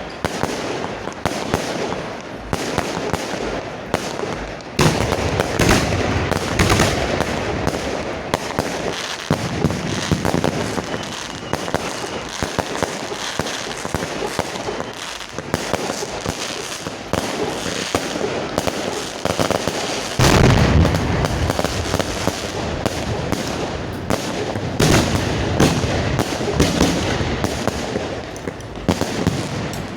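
Fireworks display fired at close range: a dense, unbroken barrage of launches and bursts, cracks and bangs packed tightly together, with heavier booms about five seconds in and again about twenty seconds in.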